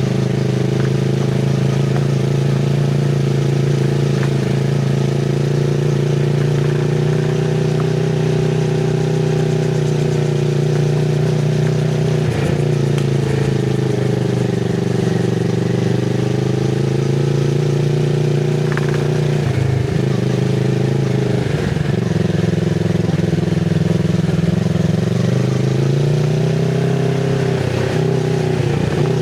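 2024 Kawasaki Z650RS's 649 cc parallel-twin engine running at low revs through an IXIL MK2 full exhaust with the dB killer fitted. The engine pitch dips briefly a few times as the throttle is eased, then rises near the end.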